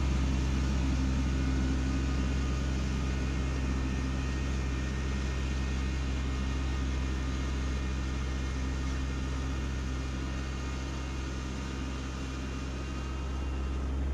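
Kubota B2601 compact tractor's diesel engine running steadily as the tractor drives through snow, a low hum that eases slightly as it pulls away and swells again near the end.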